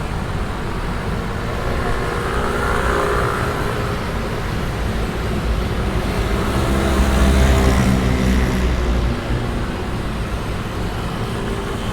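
A dense stream of motor scooters pouring past on the Taipei Bridge off-ramp during the morning rush, their small engines humming together with a steady traffic rumble. The sound swells to its loudest about seven to eight seconds in as a thicker bunch passes, then eases.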